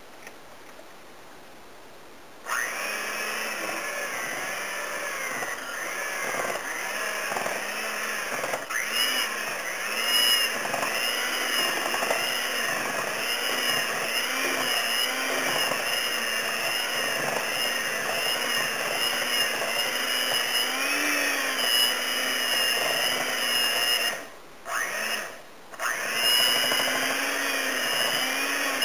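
Handheld electric mixer switched on a couple of seconds in and running steadily as its beaters work through thick cream cheese, the motor pitch rising and falling about once a second under the changing load. It cuts out briefly twice near the end, then runs on.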